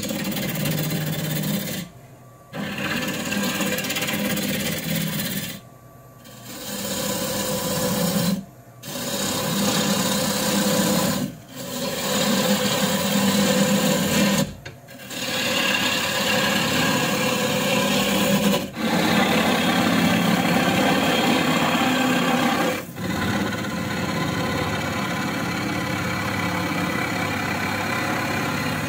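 Gouge cutting a spinning walnut bowl blank on a wood lathe: a continuous shearing rasp of shavings peeling off. It breaks off briefly every three to four seconds between passes, then runs on more steadily near the end.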